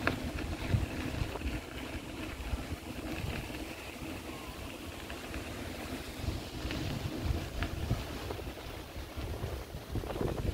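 Wind buffeting the microphone in uneven low rumbles over a steady low hum of outdoor city ambience, with a few faint clicks.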